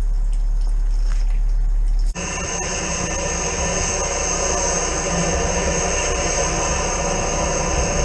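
A steady low hum for about two seconds, then an abrupt change to a loud, steady drone with several held tones: a drain-jetting machine running with its high-pressure hose fed into the pipe.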